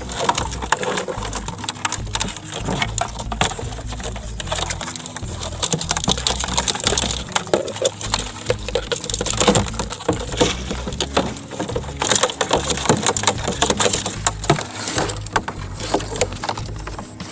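Rapid, irregular clattering, scraping and clicking as a wire-mesh crab trap is handled and crabs are shaken out onto a boat deck and moved into plastic containers.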